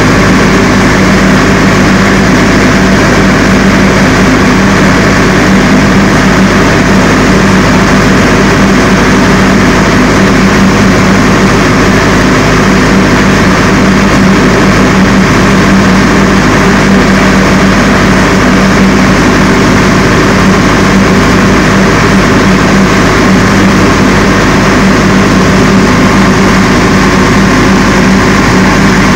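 22 kVA Able diesel generator running steadily at about 1,500 rpm while carrying a light load of about 5 kW.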